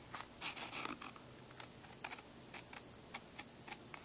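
Kitchen scissors cutting through leather: a run of short, irregular snips and clicks, a few each second, as the blades close in small bites.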